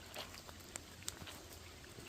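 Light rain falling on a small pond: a soft, even patter with scattered individual drops ticking, a few of them louder.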